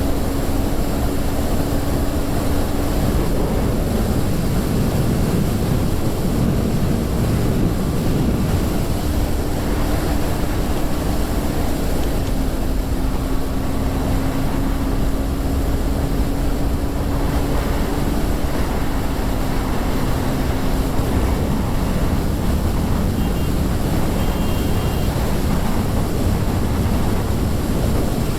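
KTM 390 Duke's single-cylinder engine with stock exhaust, running under way as the bike is ridden. Its note holds mostly steady and dips slightly a couple of times, with wind rushing over the microphone.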